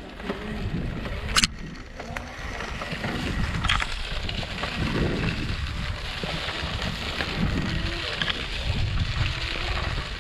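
Mountainboard rolling fast over a dirt trail, its wheels rumbling over the rough ground with wind buffeting the microphone, and a sharp click about a second and a half in.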